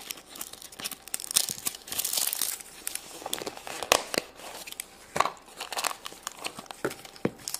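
Plastic packaging of a Num Noms surprise cup crinkling and tearing as it is opened by hand, in irregular crackles and rips, densest about two seconds in.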